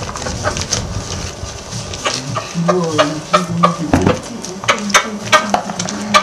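A run of short scrapes and clicks from hands working something on a flat surface, growing denser in the second half, with a low drawn-out sound about halfway through.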